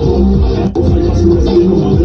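Loud music with a heavy bass and a steady beat, played back through a portable Bluetooth speaker during a sound test.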